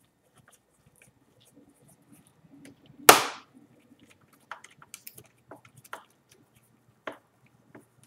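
A sharp plastic snap about three seconds in, with a short ring, as the spring-loaded foot on the Dell XPS 18's back case is clicked down; then several lighter clicks and taps of the tool and gloved fingers on the plastic case.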